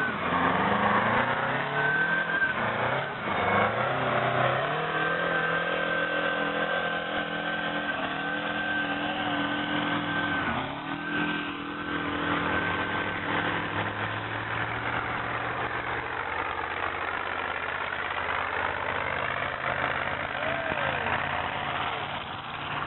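Diesel engine of a competition pulling tractor running hard under load as it drags a weight sledge. Its pitch climbs over the first few seconds and then holds steady, with a thin high whine above the engine note for a while in the middle.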